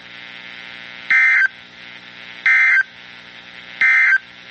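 Three short bursts of EAS digital data tones, the SAME end-of-message code that closes an alert. Each burst is a raspy warble about a third of a second long, and they come about 1.3 seconds apart. A low steady hum runs underneath.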